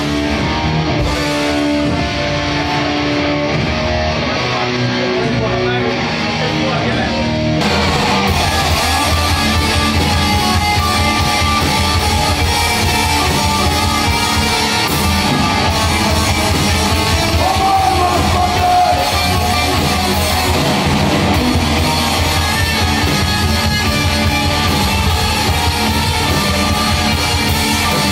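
Metal music. About seven and a half seconds in it cuts from duller music with held notes to a live band at full volume: distorted electric guitars over fast, dense drumming.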